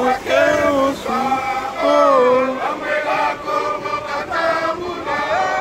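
A group of people singing a chant-like song together, several voices holding and sliding between long notes in phrases of a second or two.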